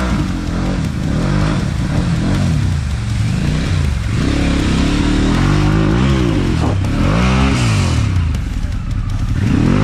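Harley-Davidson Pan America adventure motorcycle revving through a rocky creek bed, its engine pitch rising and falling repeatedly as the rider works the throttle, with water splashing around the wheels.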